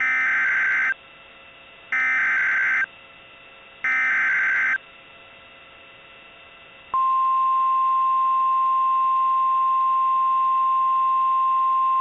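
Emergency Alert System SAME header: three identical bursts of digital data tones, each about a second long and two seconds apart. About seven seconds in, the steady 1050 Hz NOAA Weather Radio warning alarm tone starts and holds, announcing an emergency message.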